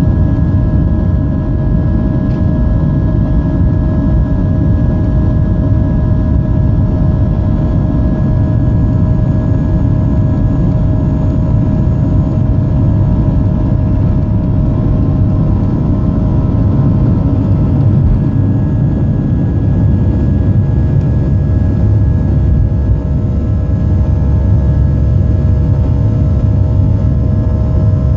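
Boeing 737-600's CFM56-7B turbofan engines at takeoff power, heard inside the passenger cabin: a loud, steady deep rumble with several steady whining tones above it, as the jet rolls down the runway and climbs out.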